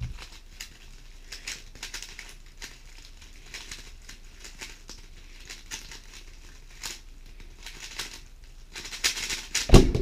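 GAN 11 M Pro magnetic 3x3 speedcube being turned at full speed through a complete solve: a fast, uneven stream of clicking and clacking layer turns. Near the end come loud thumps as the hands come down on the stackmat timer pads to stop the timer.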